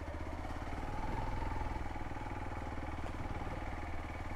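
Hero XPulse 200's single-cylinder engine running steadily under way, its revs rising a little about a second in and then holding.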